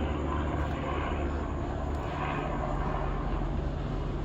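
Aircraft droning overhead: a steady low hum with no change in loudness.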